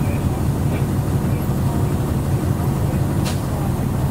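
Airport ramp bus driving across the apron, heard from inside the cabin: a steady low engine and road drone, with a single short click a little over three seconds in.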